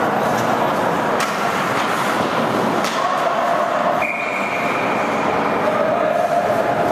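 Ice hockey rink ambience during play: a steady wash of crowd voices and skating noise, with a couple of sharp clacks of stick or puck. A held high note comes in about four seconds in.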